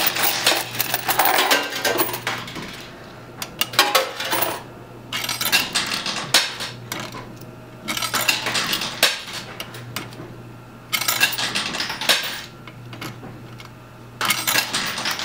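Quarters clinking and clattering in a coin pusher arcade machine as coins are fed in and drop onto the pile of coins. The clinks come in bursts every couple of seconds over a low steady hum.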